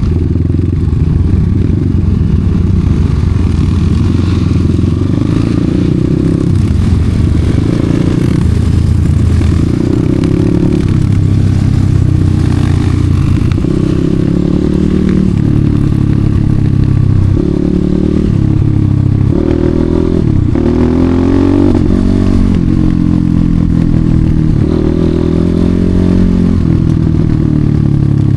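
Enduro dirt bike engine working hard off-road, its revs rising and falling again and again as the throttle is opened and closed.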